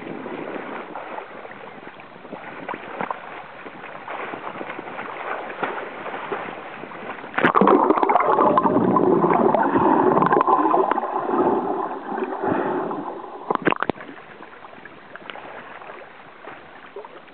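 Ocean water sloshing and gurgling close to the microphone, much louder for about six seconds in the middle, where it starts and stops abruptly, with a few knocks near the end of that stretch.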